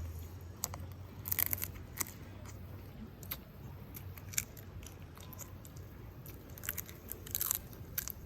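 A person chewing grilled squid close to the microphone: irregular crunchy, wet bites and chews.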